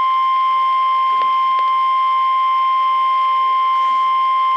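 NOAA Weather Radio 1050 Hz warning alarm tone, one steady unbroken high beep from a weather radio, signalling that a warning message follows.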